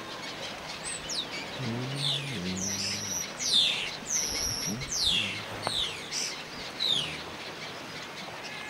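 Yellow-legged gull chicks giving thin, high-pitched peeping calls, each a quick downward slide, repeated in a loose series of about a dozen.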